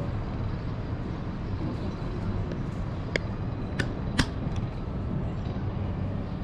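City street ambience: a steady low rumble of traffic, with three sharp clicks or knocks about three to four seconds in.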